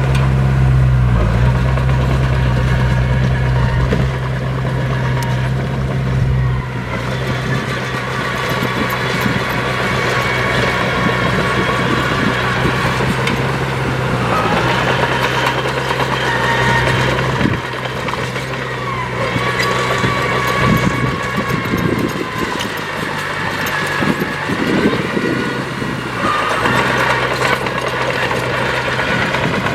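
Heavy diesel earthmoving machinery running under load. Its low engine note shifts several times, and higher whining tones rise and fall over it now and then.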